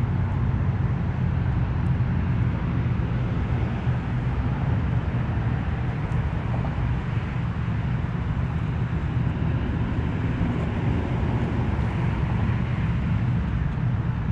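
Steady low rumble of road traffic on a nearby highway, an even noise with no distinct events.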